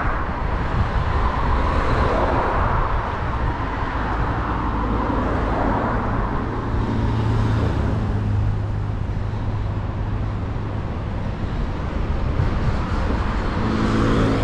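Road traffic on a city street: cars passing, with a steady low engine hum for a few seconds in the middle.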